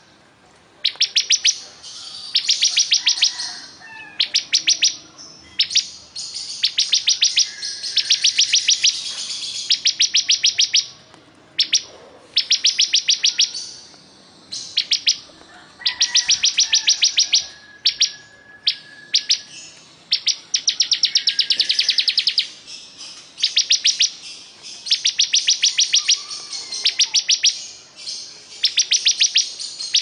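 Ciblek kristal, a bar-winged prinia, singing in long bursts of rapid, high, ticking trills, each about a second long, repeated after short pauses.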